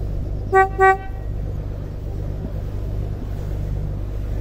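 Two short toots of a boat horn, signalling to another boat. Under them runs the steady low drone of the boat's engine.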